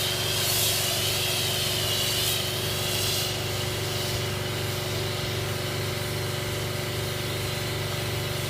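Twin-pump pressure washer running with a steady mechanical hum, over the hiss of a spraying jet that eases about three seconds in.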